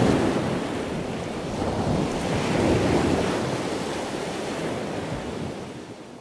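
Ocean surf washing onto a sandy beach, with wind on the microphone; the wash swells twice, then fades away near the end.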